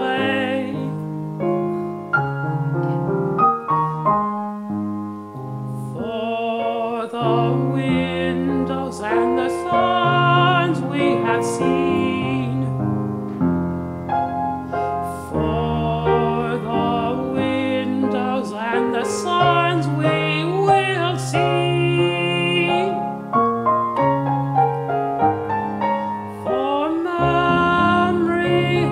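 A man singing solo with grand piano accompaniment, holding long notes with vibrato over chords and moving piano lines.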